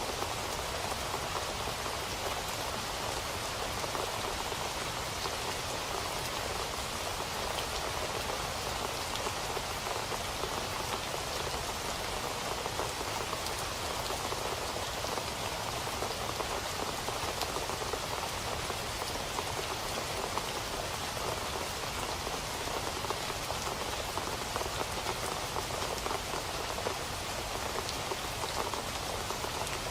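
Steady rain falling on a surface, a constant hiss with many small drop patters throughout.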